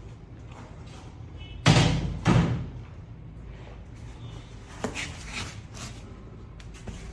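Two loud thumps about half a second apart, like a lid or door being shut, followed a few seconds later by a few lighter knocks.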